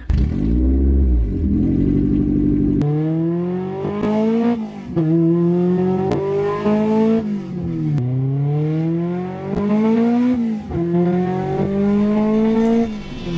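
1999 Honda Civic SiR's B16 DOHC VTEC four-cylinder engine pulling hard through the gears. After a few seconds of lower rumbling, the engine note climbs steadily and drops sharply at each upshift, several times over.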